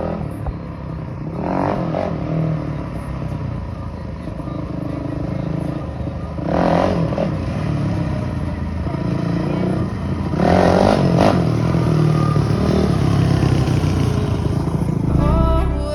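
Dirt bike engine running, with three hard revs a few seconds apart. Music starts right at the end.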